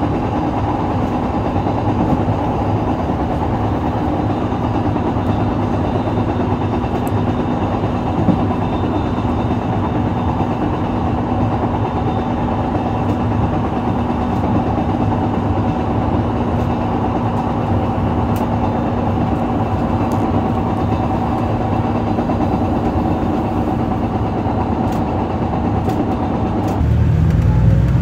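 Diesel railcar running along the track, heard from on board: a steady rumble with a constant hum. About a second before the end it turns louder and lower.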